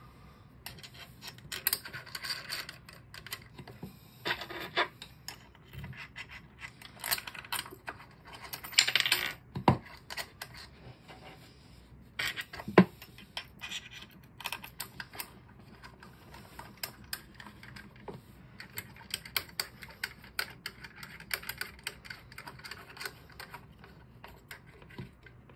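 Irregular small metallic clicks, taps and scrapes as the four screws and burr carrier of a Wug2-83a coffee grinder are fitted back by hand. There is a louder rattling cluster about nine seconds in and a sharp click a few seconds later.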